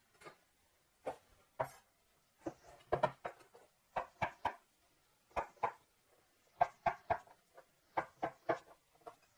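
Chef's knife chopping zucchini on a bamboo cutting board: sharp knocks of the blade hitting the wood, in short runs of two or three strokes with brief pauses between.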